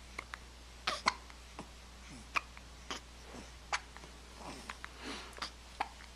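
Several girls hiccuping: about a dozen short, sharp hics at uneven intervals, some with a brief squeak that falls in pitch.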